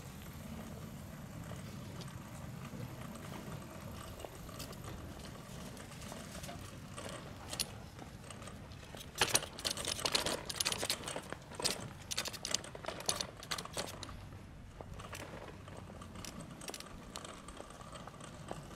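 Wheels of a pet cart carrying a dog rolling over street pavement with a low rumble, then a run of sharp rattles and clicks about halfway through as the cart bumps across railway tracks at a level crossing.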